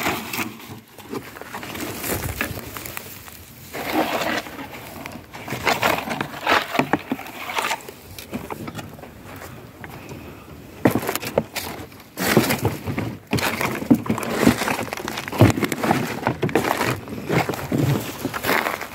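Dry grass, twigs and cardboard rustling and crackling as they are trampled and handled, with irregular crunches and knocks from scrap being moved.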